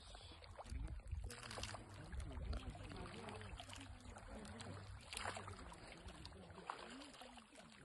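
Shallow lake water splashing a few times as a person wading among pebbles scoops up and tosses handfuls of water, with a low rumble through the first half.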